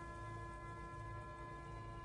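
Soft background music of several steady held tones over a low hum.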